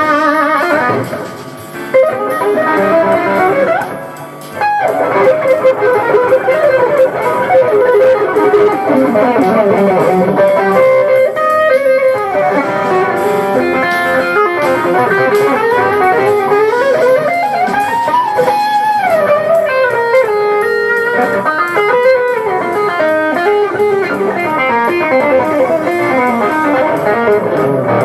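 Electric guitar playing a jazz fusion piece, with flowing single-note melodic lines that slide and bend in pitch, easing off briefly twice near the start.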